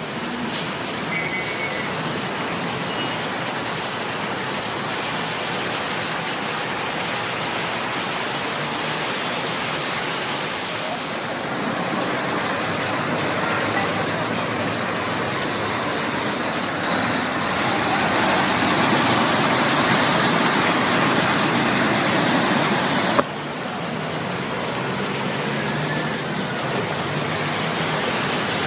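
Steady hiss of traffic on waterlogged streets, with car tyres churning through floodwater and water rushing along the road. The noise swells louder and brighter in the second half, then drops suddenly about three-quarters of the way through.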